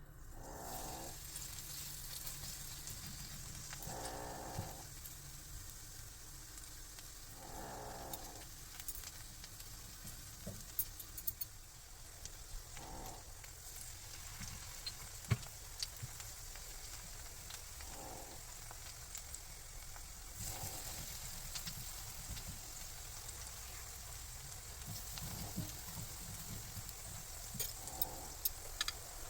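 Food sizzling as it fries in a pan, a steady hiss with short stirring sounds every few seconds and a few sharp utensil clicks, more of them near the end.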